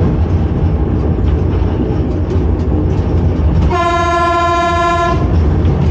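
Warning horn of a Reko-ET electric railcar, heard from its driving cab: one steady single-pitched blast of about a second and a half, a little over halfway through, over the continuous low rumble of the railcar running along the track.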